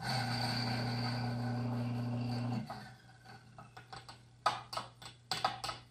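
Ceado E37S coffee grinder running for about two and a half seconds as it grinds a single dose of espresso beans, then stopping. Several sharp taps and clicks follow near the end.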